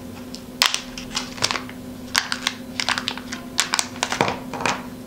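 Plastic anti-static bag being pulled open by hand, crinkling in irregular sharp crackles.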